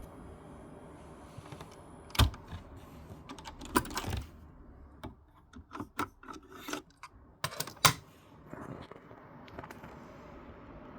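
Clicks and clunks of a Technics RS-B28R cassette deck's push-buttons and tape mechanism being operated: a string of separate sharp clicks, the loudest about two seconds in and near eight seconds in.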